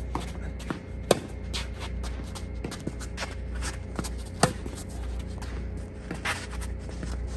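Tennis rally: sharp pops of the ball striking the rackets, loudest about a second in and again about four and a half seconds in, with fainter ball bounces and shoe scuffs on the court between them.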